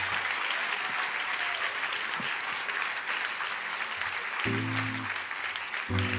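Audience applauding. An acoustic guitar comes back in with strummed chords about four and a half seconds in, and again near the end.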